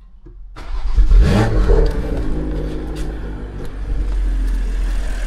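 BMW B58 3.0-litre turbocharged inline-six, with an aftermarket downpipe and Valvetronic titanium exhaust, starting up: it fires about half a second in, flares in a brief rev, then settles into a steady idle. This is the first start after the fuel line was opened to fit an ethanol content sensor.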